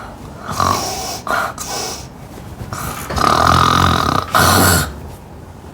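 Loud snoring: a string of rough, low snores and snorts, short ones first, then a long loud snore about three seconds in, closed by a short snort.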